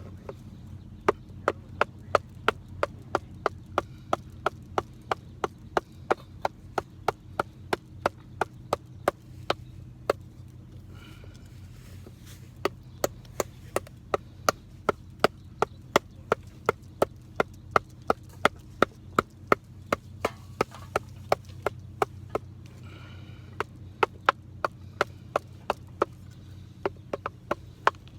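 A knife being batoned through wood, struck with a wooden baton in a steady run of sharp knocks about three a second, with a couple of short breaks.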